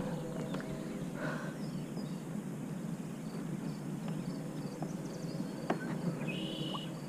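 Steady, burbling water noise from a pedal-drive kayak moving through calm lake water, with faint bird chirps and one clearer bird call about six seconds in.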